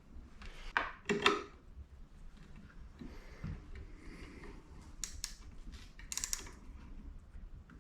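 Small metal parts clicking and clinking as motorcycle mirror hardware is handled and fitted. There are a few sharp clicks, the loudest pair about a second in and more around five and six seconds, with light rubbing between them.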